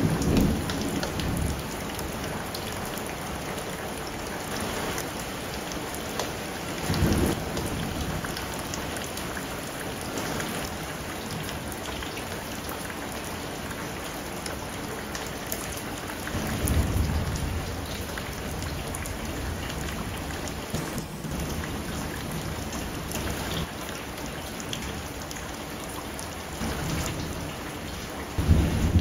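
Cubed pork sizzling in a nonstick wok while a spatula stirs it, a steady sizzle with a few low thumps from the stirring, about every ten seconds.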